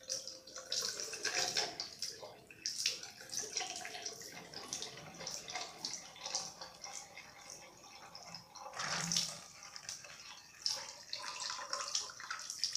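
Water running from a bathroom sink tap, splashing unevenly as hands are washed under the stream.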